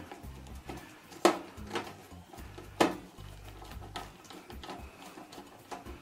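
Screwdriver driving a small screw by hand into a sheet-metal exhaust fan housing: scattered light clicks, with two sharp metallic knocks a little over a second in and near three seconds in.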